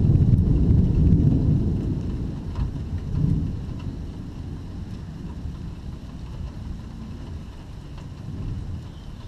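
Rolling thunder: a deep rumble, loudest at the start, fading away over the next few seconds.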